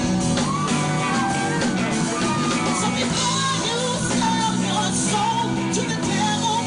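Live band music with a singer, recorded on a phone at a club performance, with some shouting from the crowd.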